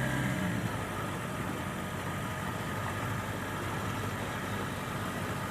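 An engine running steadily at an even pitch, with a faint low hum under a broad, noisy wash.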